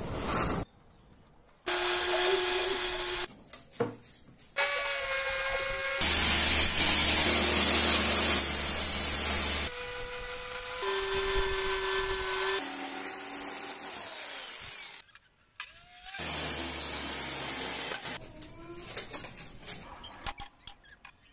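A series of short power-tool bursts on plywood, each cut off abruptly: motors running with a steady whine, the loudest a long noisy cutting run in the middle. Near the end comes a string of quick sharp clicks from an electric nailer/stapler fastening the plywood.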